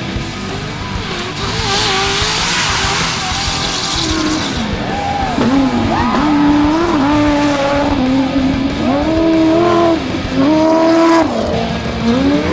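Off-road trophy truck engine revving hard at race pace, its pitch climbing, holding and dropping several times as it shifts and lifts. A rush of spraying dirt comes about two seconds in.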